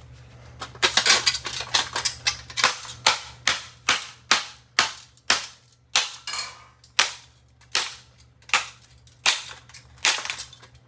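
Rapid, repeated sharp blows smashing the metal and glass light fixture of a ceiling fan, about two strikes a second with a clattering, ringing tail to each, starting about a second in.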